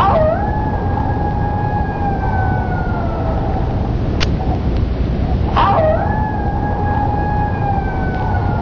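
Steady rumble and rush inside a moving aerial tram car, with two whining tones about five and a half seconds apart. Each starts with a click and slowly falls in pitch over about three seconds.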